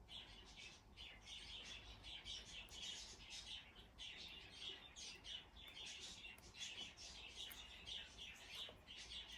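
Faint bird chirping: many quick chirps one after another, with no break.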